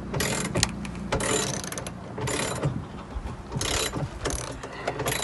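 Socket ratchet wrench clicking in short runs of strokes, several times over, as a bolt is tightened into the plastic bed of a Gorilla Carts dump cart.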